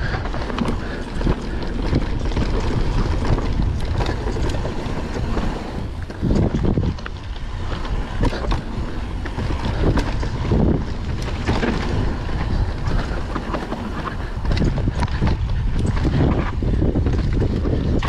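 Wind buffeting an action camera's microphone as a Nukeproof Mega mountain bike rolls fast down dirt singletrack. Tyres rumble over the dirt and roots, and the bike's chain and parts rattle in frequent clicks and knocks.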